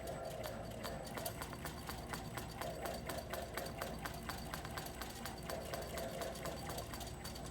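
CNC quilting sewing machine stitching a pattern: a steady, even run of rapid needle clicks over a constant motor hum.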